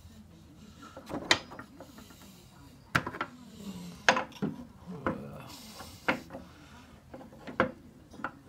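Metal parts being handled and set in place on a mini lathe: a series of sharp metallic clicks and knocks, roughly one a second, with some light rubbing between them.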